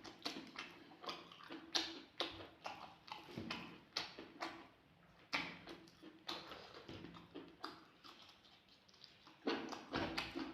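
Close-miked eating: irregular wet chewing clicks and lip smacks of someone eating chicken curry with rice, several a second, fading for a few seconds in the middle before picking up near the end.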